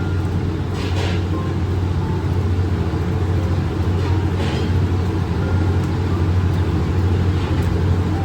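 Steady low hum and rumble of kitchen machinery, with a few faint light knocks.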